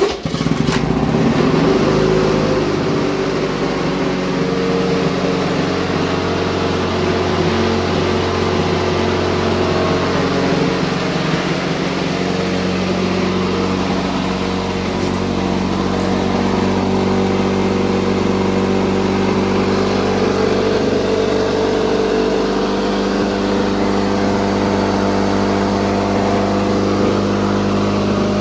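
1979 Lawn-Boy R7268 mower's two-stroke engine starting up and running steadily. The pitch settles in the first couple of seconds, then holds even.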